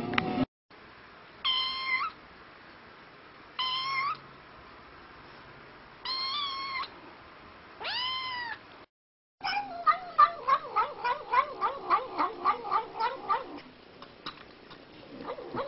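A white fold-eared kitten meows four times, each meow short and high, about two seconds apart. Then a white cat gives a quick run of short, pitched calls, about four a second, for about four seconds.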